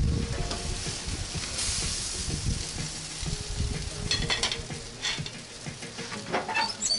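Hot gas-grill grate sizzling as grilled pork is lifted off with tongs. Several sharp metallic clinks of the tongs against the grate and plate come in the second half.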